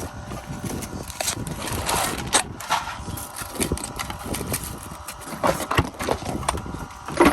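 Irregular knocks, clatter and rustling of objects being handled and moved about, with the loudest knock near the end.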